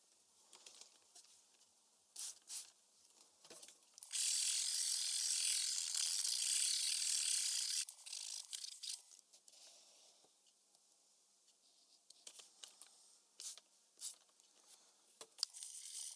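Smith-Corona Calypso portable typewriter's mechanism being worked: a few sharp clicks, then a loud ratcheting rattle lasting about four seconds, then more scattered clicks.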